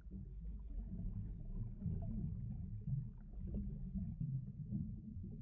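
Muffled underwater bubbling and rumbling, as heard from beneath the surface, with the sound sitting mostly low and dull.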